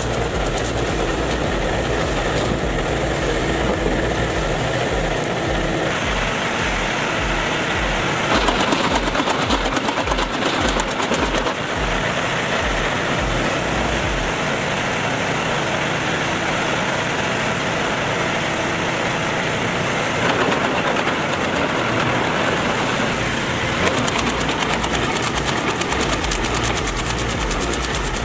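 Heavy machine engine running under load, with steady mechanical noise whose character shifts several times.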